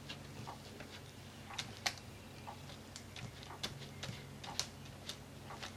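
Faint, irregular light clicks and taps of plastic stencils and craft supplies being handled and positioned on a page, over a low steady hum.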